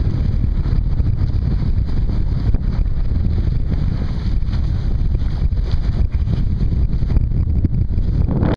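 Wind buffeting the microphone on an open boat: a loud, steady, low rumbling rush that cuts off suddenly at the end.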